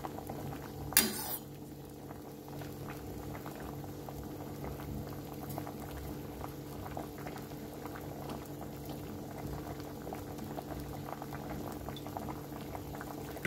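Pot of vegetable soup at a rolling boil in a stainless steel pot: steady bubbling with many small pops over a low hum. About a second in, a short loud clatter as the metal ladle knocks against the pot.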